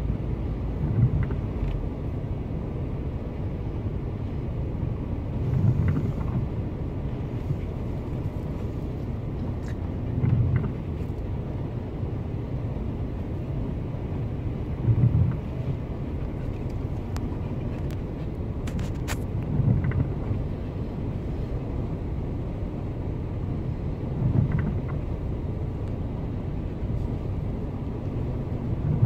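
Storm wind and surf heard from inside a parked car: a steady low rumble, with a short low surge about every four and a half seconds.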